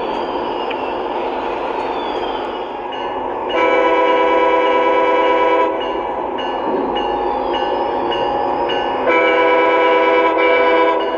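Lionel O-gauge Amtrak Acela model's onboard sound system sounding two long horn blasts of about two seconds each, the first about three and a half seconds in and the second about nine seconds in, over the train's steady running sound.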